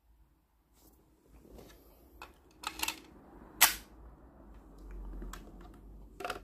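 Sharp plastic clicks and snaps from handling a Premium DX Laser Raise Riser transformation toy: several separate clicks, a quick double click near the middle, the loudest about three and a half seconds in, and two more near the end.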